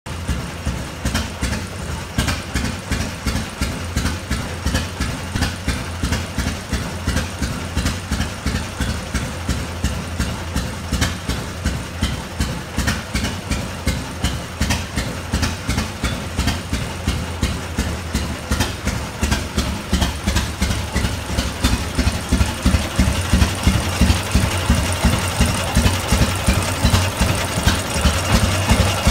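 Rumley OilPull 16-30 Type H tractor's two-cylinder engine running at a slow, even idle on its freshly retimed magneto, each firing stroke a distinct beat. The beats grow louder about three-quarters of the way through, heard close up at the open crankcase.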